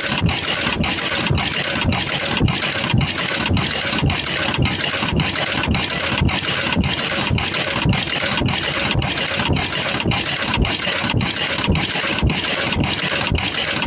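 Automatic 3-ply mask earloop welding machine running: a steady rush of mechanical noise that beats in an even rhythm about three times a second, with a low knock on each cycle.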